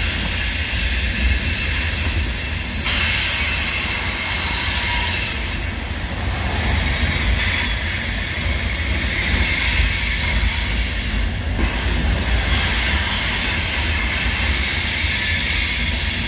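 CSX covered hopper cars rolling over a steel girder railroad bridge overhead: a steady deep rumble with a hiss of wheels on rail, the hiss growing brighter about three seconds in.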